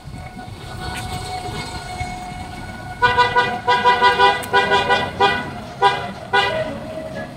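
A vehicle horn honking in a string of about six short blasts, starting about three seconds in, over a steady low rumble of street traffic.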